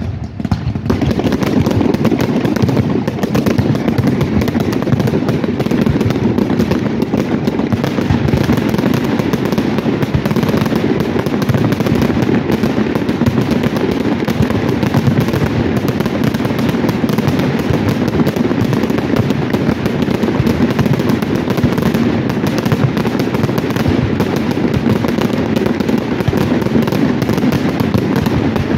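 Fireworks display: aerial shells and ground fountains going off in a dense, unbroken run of bangs and crackling.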